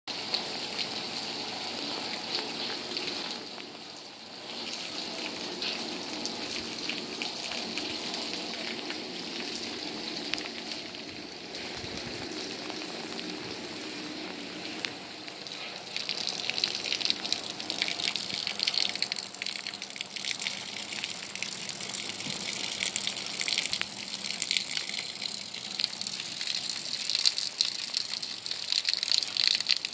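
Steady rain with rainwater running over a waterlogged yard, an even watery hiss. About halfway through, a closer, crackling patter of raindrops joins in and the sound gets a little louder.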